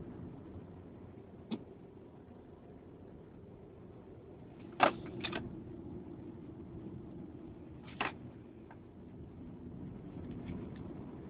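Steady low vehicle rumble with a few sharp knocks: a faint one early, a loud one about five seconds in followed by a second right after, and another near eight seconds.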